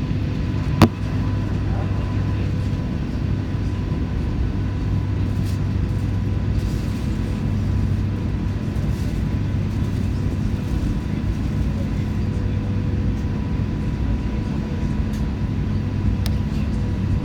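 Steady low cabin hum of an Airbus A380 with its Rolls-Royce Trent 900 engines at low power during taxi, heard from a seat over the wing, with a faint steady whine on top. A single sharp click just under a second in.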